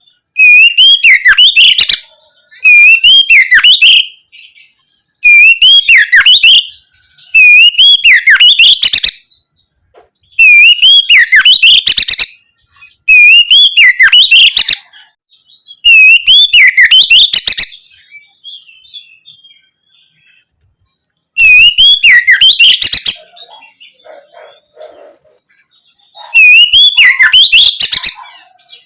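Oriental magpie-robin singing loud, repeated whistled phrases of about two seconds each, nine in all, with a longer pause about two-thirds of the way through.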